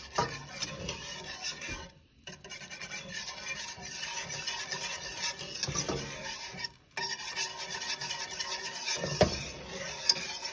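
Wire whisk scraping and rubbing around a stainless steel skillet, stirring a cornstarch-thickened sauce as it thickens. A few louder knocks of the whisk against the pan come through, and the scraping breaks off briefly twice.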